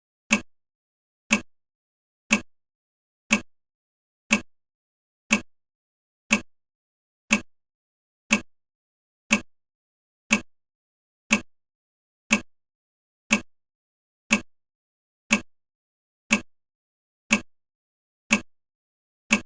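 Countdown timer's clock-tick sound effect: one short, sharp tick every second, each dying away quickly, in a steady rhythm.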